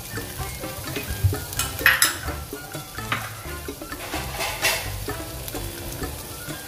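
Onion rings and garlic sizzling in hot oil in a ceramic pot, a steady crackle with sharp pops, the loudest about 2 seconds in and again past the halfway mark.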